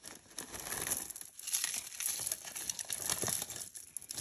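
Packaging crinkling and rustling as it is handled: a dense, continuous run of small crackles.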